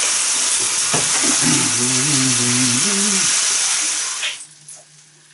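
Beef burger patties sizzling loudly in a frying pan, the steady frying hiss cutting off about four seconds in.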